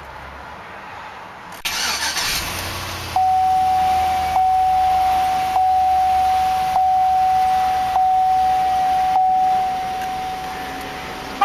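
2003 Chevrolet Avalanche's 5.3-litre Vortec V8 cranked briefly by the starter, catching about two seconds in and settling to idle. About a second later a dashboard warning chime starts, pulsing about once a second for roughly seven seconds before fading; the chime is the loudest sound.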